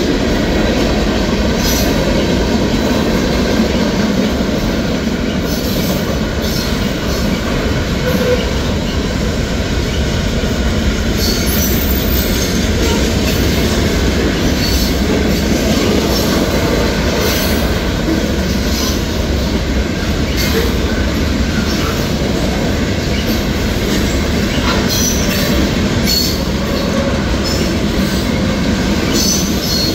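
Freight cars (tank cars, covered hoppers and boxcars) rolling steadily through a grade crossing: a continuous rumble of steel wheels on rail, with scattered irregular clicks and clanks from wheels and couplers.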